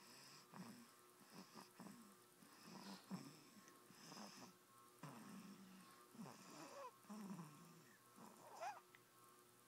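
A sleeping baby snoring faintly: soft, short snores about once a second, with a brief squeaky rise in one breath near the end.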